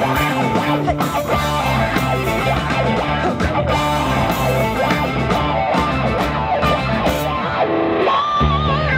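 Rock band playing live: electric guitar and a red Precision-style electric bass played with a pick, over drums. The bass line drops out for about half a second near the end, then comes back in.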